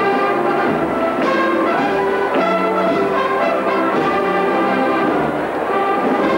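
Brass band playing a slow processional march, held brass chords that change every second or so.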